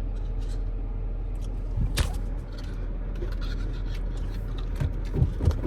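Steady low rumble of a car's running engine heard inside the cabin, with one sharp click about two seconds in and a few soft knocks near the end.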